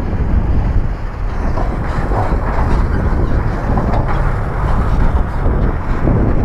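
Heavy earthmoving machine's diesel engine running steadily under load, a loud low rumble with a few faint knocks.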